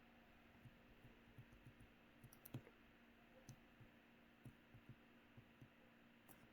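Near silence: room tone with a faint steady hum and scattered faint clicks, a little louder about two and a half seconds in.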